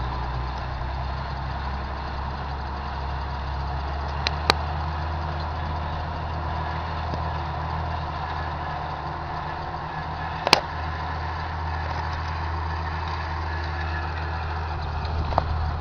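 Fiat 115-horsepower farm tractor's diesel engine running steadily under load while pulling a rotary hay rake that makes windrows. Three sharp clicks cut through the drone.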